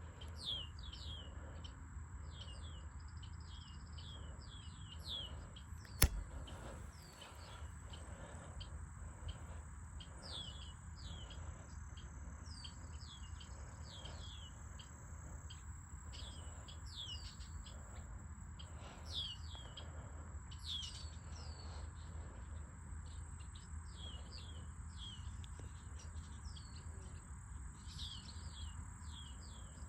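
Small birds chirping over and over, a long run of short, quickly falling chirps, above a steady low rumble. A single sharp click about six seconds in.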